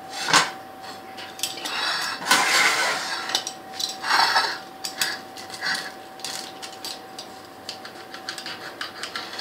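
Utensils clinking and scraping against a ceramic plate as a baked pizza with a crisp crust is cut: a metal server and a pizza-cutter wheel working across it. Scattered sharp clicks, with longer scraping passes about two seconds in and again about four seconds in.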